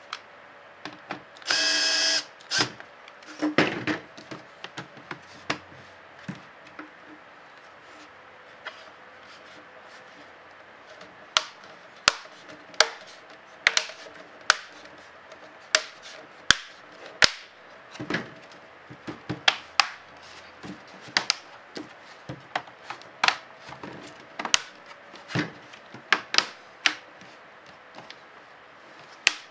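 Plastic snap clips of a laptop palmrest clicking into place one after another, as the cover is pressed down around its edges. The clicks are sharp and irregular, and come thickly in the second half. About two seconds in, a small motor whirs briefly and loudly.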